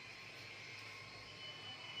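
Faint steady background hiss of a quiet room, with no clicks or strikes.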